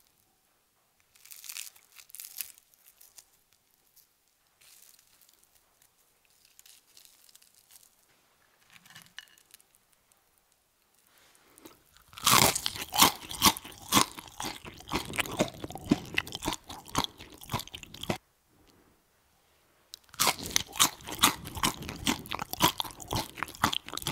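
Crisp breadcrumb-coated zucchini rings crunching in two long runs of rapid, sharp crunches, one from about halfway through and another near the end. Before them come only soft, scattered rustles of the coated rings being handled.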